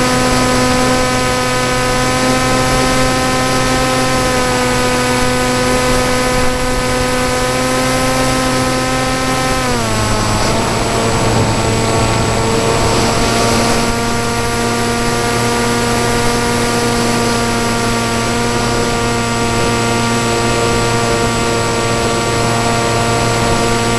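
RC flying wing's motor and propeller running steadily in flight; the pitch drops about ten seconds in as the throttle comes back, then settles again into a steady tone.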